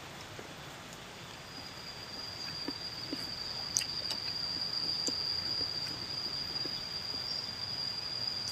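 An insect's steady high-pitched trill begins about a second in and carries on unbroken, with a few faint clicks over it.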